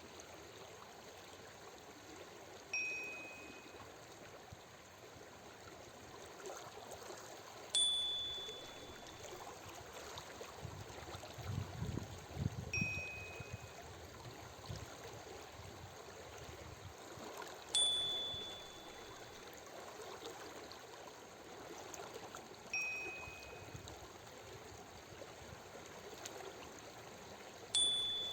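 Flowing stream of water running steadily, with a soft chime ringing every five seconds that alternates between a higher and a lower tone, marking each switch between breathing in and breathing out in a 5-second-in, 5-second-out paced-breathing rhythm. A brief low rumble comes about halfway through.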